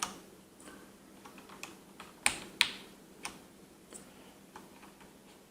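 Plastic keycaps being pressed back onto the Cherry MX Brown switch stems of a mechanical keyboard: a scatter of sharp, irregular clicks, the two loudest close together a little past two seconds in.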